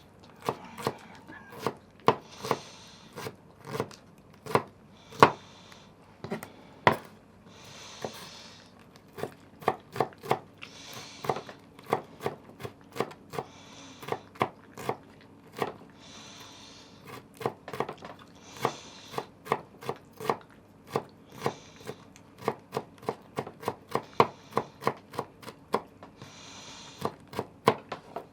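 Kitchen food preparation: a utensil or knife striking a board or dish in quick, uneven taps, about two or three a second, with a short scraping sound every few seconds.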